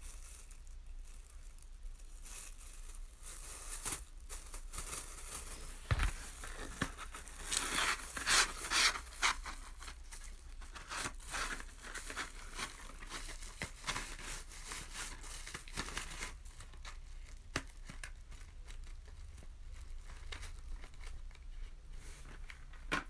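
Sparkler packaging being handled: a plastic wrapper and cardboard sparkler packs crinkling and rustling in irregular spurts, busiest about seven to nine seconds in, with a single knock about six seconds in.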